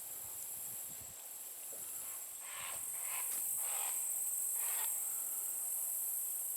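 A steady, high-pitched insect chorus, like crickets trilling. Midway through come a few short swishing rustles, like steps brushing through tall grass.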